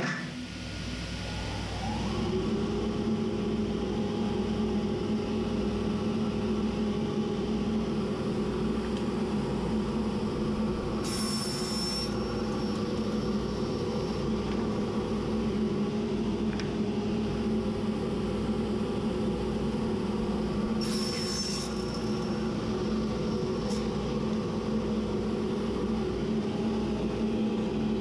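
Table saw motor switched on, spinning up over about two seconds, then running with a steady hum. Twice, about 11 and 21 seconds in, a short high whine as the blade cuts through a piece of pine.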